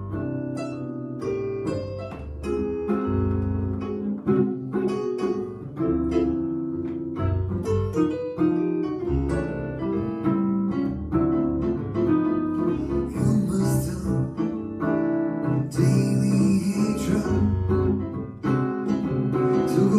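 Live swing jazz played by an acoustic guitar and a keyboard with a piano sound, with plucked guitar chords over low piano bass notes, no singing.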